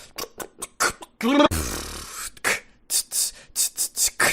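A man beatboxing: a rapid string of mouth clicks and snare-like hisses. About a second in there is a short sliding vocal tone and a longer hissing bass sound.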